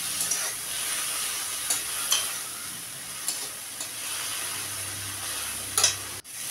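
Small prawns sizzling as they fry in hot oil in a metal kadai, stirred with a metal spatula that scrapes against the pan now and then. There is a burst of louder scrapes near the end.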